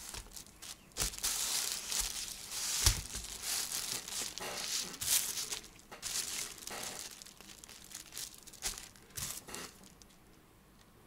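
Gloved hands handling a brass clock movement: irregular rustling and crinkling with scattered clicks and knocks as the movement is turned over and set down on its stand, and tools are picked up. It quietens near the end.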